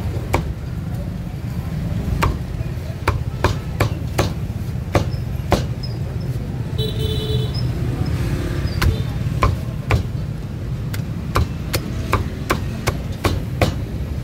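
Cleaver chopping meat: sharp separate chops at an uneven pace of one to three a second, pausing for about two seconds midway, over a steady low rumble of street traffic.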